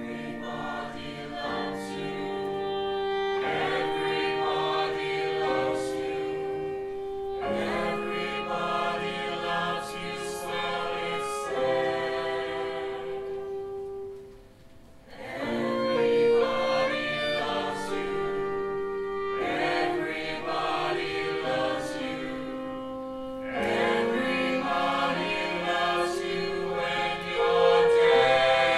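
A group of voices sings a slow musical-theatre song in long held notes over bowed strings. It drops away briefly about halfway, then comes back in and grows louder near the end.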